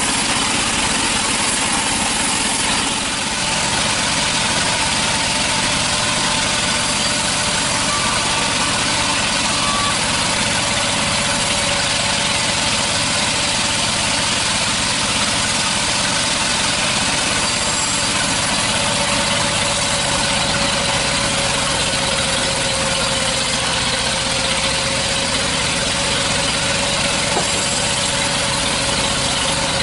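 Sawmill machinery running steadily, a loud even mechanical noise with a faint held tone throughout.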